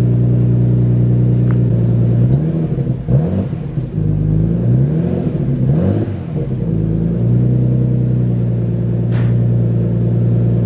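Nissan Skyline R33 GTS-t's turbocharged RB25DET straight-six idling through a newly fitted X-Force mild steel exhaust, blipped several times about two seconds in, the revs rising and falling, then settling back to a steady idle. This is the first run with the new exhaust, fitted to make the car quieter.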